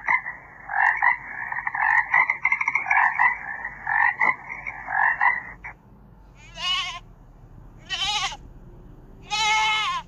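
Recorded animal calls: a fast, pulsing chorus for about the first six seconds, then three short wavering calls spaced about a second apart.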